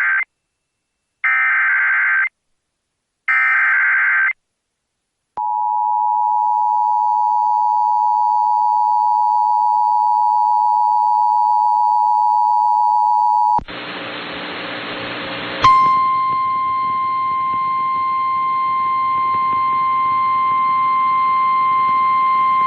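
Emergency Alert System SAME header: three short bursts of digital data tones, the first already under way. Then the two-tone EAS attention signal holds steady for about eight seconds. After about two seconds of static, NOAA Weather Radio's single-pitch warning alarm tone starts and holds over radio hiss.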